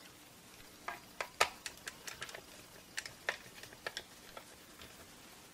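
Light, irregular clicks and taps of a screwdriver working on a digital multimeter's plastic back case, starting on its self-threading screws. The taps are clustered between about one and four and a half seconds in.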